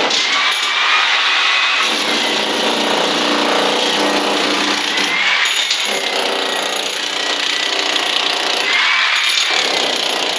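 A power tool runs under load, its pitch dipping and recovering several times.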